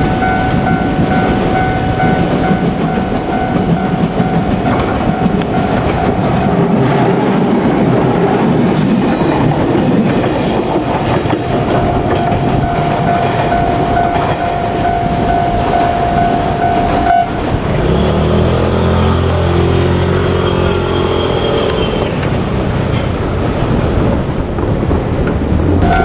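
JR Kyushu 817-series electric train passing over a level crossing, its wheels clacking over the rails. The crossing's warning bell rings as a steady tone and stops suddenly about two-thirds through. A low hum with several pitches follows for a few seconds.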